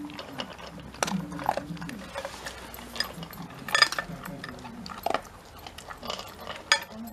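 Shiba Inu eating dry kibble from its bowl: crunching and chewing, with sharp clicks of teeth and food against the bowl now and then.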